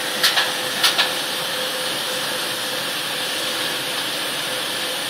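Steady hissing industrial machinery noise with a faint constant hum around a sorghum steaming vessel, with a few short clatters in the first second.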